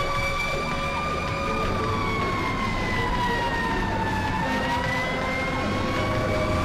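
Fire engine siren wailing slowly: its pitch sinks gradually to a low point about four seconds in, then climbs again. Vehicle road noise runs beneath it.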